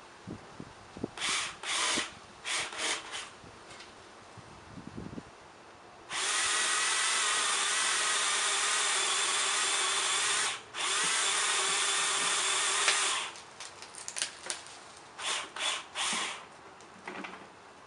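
Ryobi 18V One+ cordless pole saw's electric motor and chain cutting into a tree limb. A few short bursts on the trigger, then a steady run of about seven seconds with a brief let-off partway through, then more short bursts near the end.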